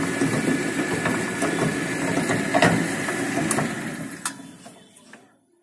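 Electric shredder, a motor driving spiral twin-shaft cutters, running while chopping neem leaves and branches, with a few sharp cracks. About four seconds in it is switched off and runs down to quiet.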